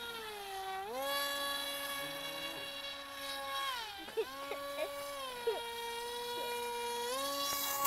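Small electric motor of a homemade radio-controlled boat whining, its buzzing pitch dropping and rising as the throttle changes: a dip about a second in, a drop around four seconds and a rise again near the end.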